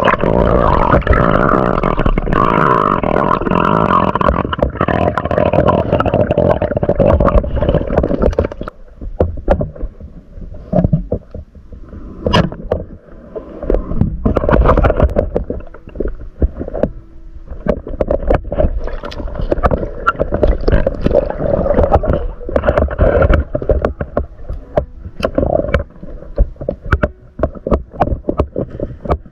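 Water and bubble noise heard through a camera held underwater, gurgling with irregular knocks and clicks. Steady and dense for the first eight seconds or so, then broken into uneven bursts.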